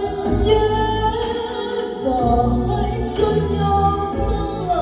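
A woman singing a Vietnamese karaoke song into a handheld microphone over a backing track, played through a Star Sound line array speaker system, with long held notes that slide in pitch.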